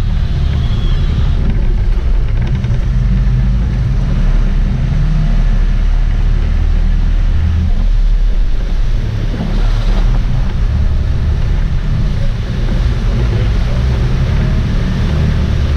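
A sportfishing boat's diesel engines running hard, with churning water around the stern and wind buffeting the microphone: a loud, steady low rumble.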